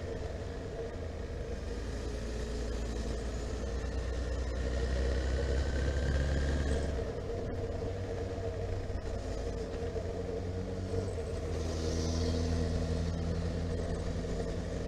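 Honda CB1300SF's inline-four engine running as the motorcycle is ridden, with wind noise over it. The engine note changes about halfway through and settles into a new steady tone a few seconds later.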